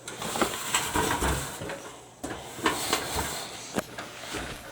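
Computer parts being handled: rustling with scattered clicks and knocks.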